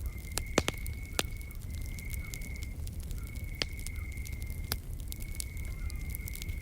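Wood fire crackling with sharp pops, the loudest just after the start, over a low steady rumble. An insect trills on one steady high note in stretches of about a second with short breaks between.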